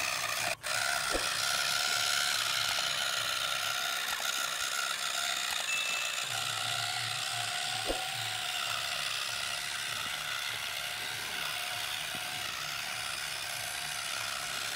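Small electric motor and gearbox of a homemade model tractor whirring steadily as it pulls a disc harrow through sand, with a momentary break about half a second in.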